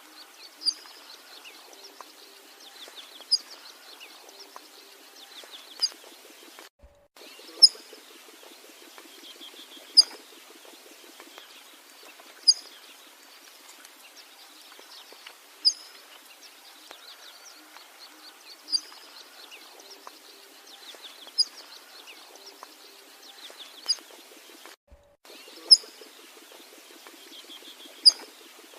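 Birds calling: one loud, sharp chirp repeats about every two and a half seconds over fainter trilling calls. The audio cuts out briefly twice.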